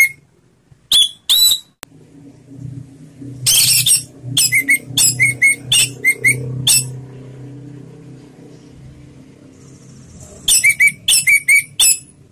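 Orange-headed thrush singing its full-voiced 'ngeplong' song: short, loud, sharp notes delivered in quick runs with pauses between, a few at first, then a long run and a shorter one near the end. A low steady hum sits faintly underneath through the middle.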